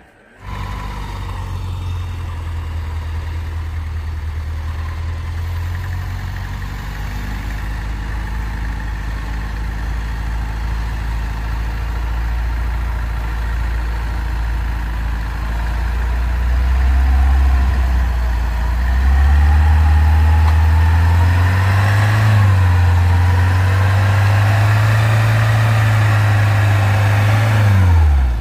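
Four-wheel-drive jeep's engine running, steady at first, then louder and higher in pitch, wavering under load from a little past halfway, and falling sharply in pitch at the very end.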